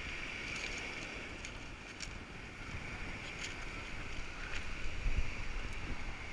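Wind and surf on a GoPro's microphone, muffled, with an uneven low rumble from the camera being carried and a few faint clicks.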